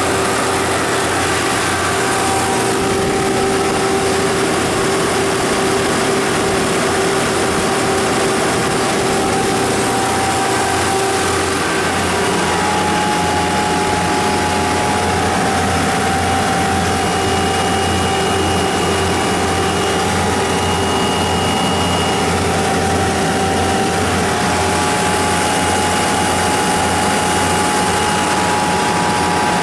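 Kohler 60RZG standby generator's GM 5.7-litre V8 gas engine running steadily at its rated 1800 rpm, with the alternator turning.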